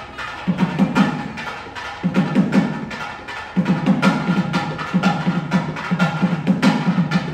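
Festive music driven by fast drumming: sharp drum strokes over a rapid, throbbing low pulse that drops out briefly a few times.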